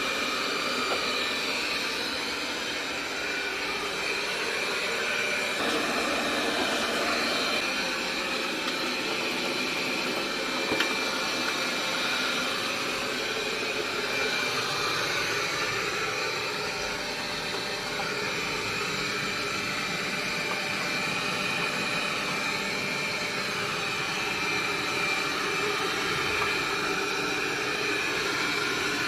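iNIC i9 robot vacuum cleaner running: a steady whirring hiss with a thin, steady high whine over it.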